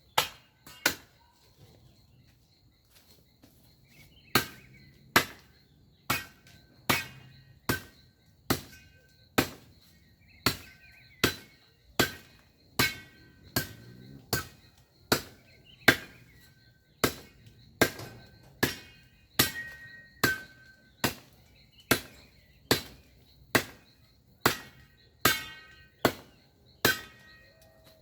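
Branches being chopped with a bladed hand tool: a steady run of sharp strokes about one a second, each leaving a short ringing tone, after a pause of a few seconds near the start.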